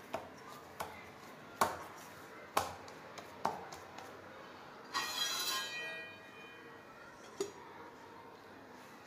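Dough being kneaded by hand in a stainless steel bowl, with a few sharp knocks of the hand against the bowl. About five seconds in, a stainless steel lid is set on the bowl and rings briefly, fading over about a second, followed by one more light click.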